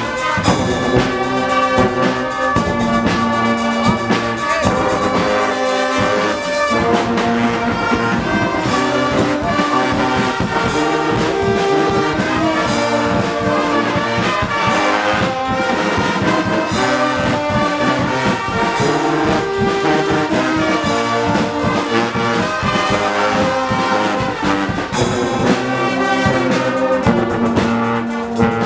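Guggenmusik carnival band playing brass music: trombones and trumpets over a drum kit with cymbals and a bass drum keeping a steady beat.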